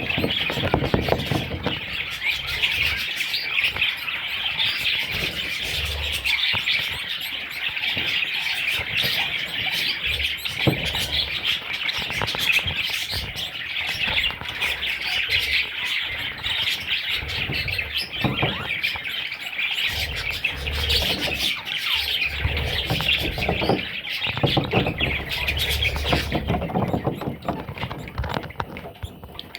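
Budgerigars chirping continuously in a dense, overlapping chatter that thins out near the end.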